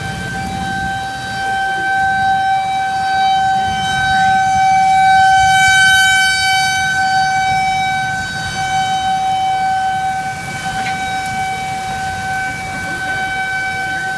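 Outdoor tornado warning siren sounding a steady single-pitch tone, swelling louder around the middle and easing off again.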